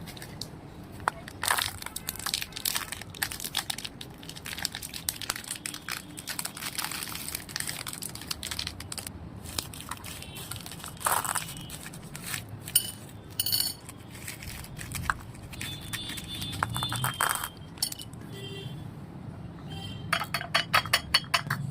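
Plastic candy packaging crinkling and crackling as it is unwrapped and handled, with sharp clicks and clinks of hard candies. A quick run of clinks comes near the end.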